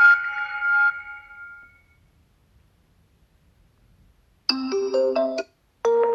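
Oppo A16 phone's built-in tones: one melodic tone rings out and fades over the first second or two. After about two and a half seconds of quiet, the next tone begins with short, piano-like chords that stop briefly and start again.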